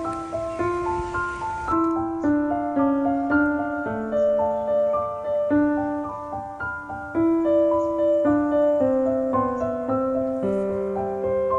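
Piano music: a gentle melody of held notes over chords. A soft hiss under it stops about two seconds in.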